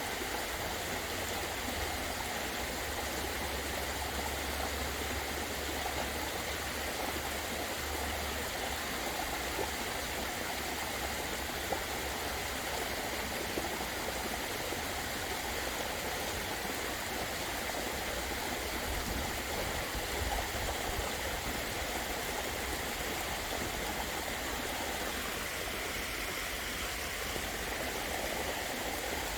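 Steady rush of falling and flowing water from a garden waterfall.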